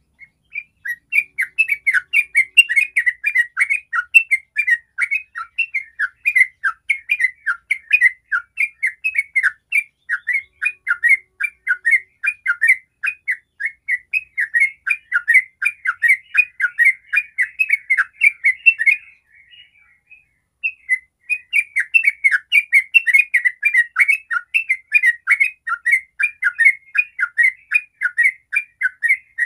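Yellow-vented bulbul singing a long, fast run of short chattering notes, several a second, in the rapid continuous style bird keepers call ropel. It breaks off for about two seconds about two-thirds of the way through, then resumes.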